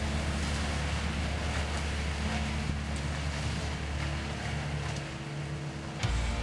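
Skid steer engine running steadily under load while driving a hydraulic forestry brush cutter. About six seconds in, the sound changes abruptly and jumps in level.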